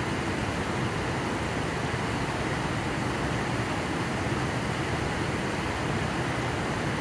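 Whitewater of the Potomac River's Great Falls rushing over rock, a steady unbroken roar of water.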